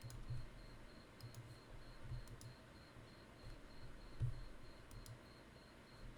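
A few faint computer mouse clicks, spaced irregularly, with several soft low bumps, the strongest about four seconds in.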